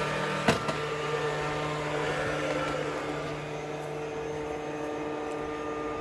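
Philips SmartPro Active robot vacuum cleaner running: a steady motor and suction-fan hum with several held tones, as it drives from the hard floor onto a rug. A single sharp click about half a second in.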